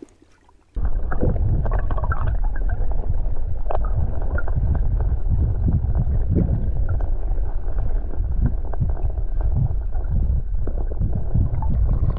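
Muffled underwater rumbling and gurgling of moving river water, heard through a camera microphone dipped below the surface, with small knocks. It starts suddenly about a second in.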